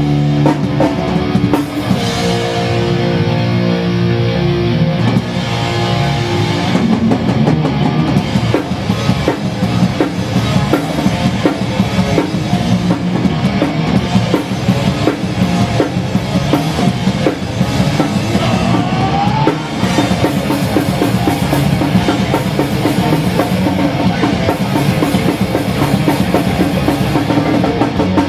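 Hardcore punk band playing live, with electric guitar and bass over a drum kit. Chords are held at first, then a fast, steady drum beat drives from about six seconds in.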